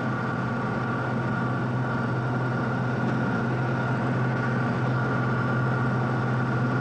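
Steady running drone of a vehicle heard from inside the cabin, a constant low hum with a couple of thin steady higher tones over it.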